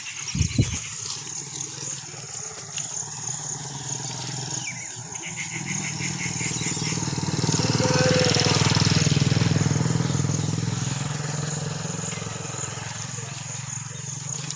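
A motor vehicle drives past, its engine hum growing louder to a peak about two-thirds of the way through and then fading away. There is a sharp knock right at the start, and a steady high insect chirring runs underneath.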